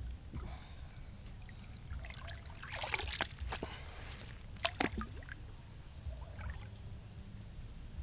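Hands digging into shallow pond water and mud at the bank, splashing and dripping, with a dense cluster of splashes about three seconds in and a couple of sharp splashes just before the middle as wet mud is lifted out.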